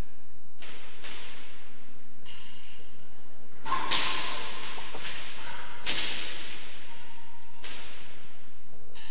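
A hard ball being struck by rackets and cracking off the walls of an enclosed court during a rally: about five sharp cracks, one every second and a half to two seconds, each ringing and echoing, the loudest about four seconds in.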